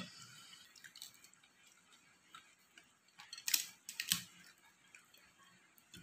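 Bare fingers gathering rice and side dishes on a plate, making small clicks and ticks. There is a sharp click at the start and a short run of louder clicks about three and a half to four seconds in.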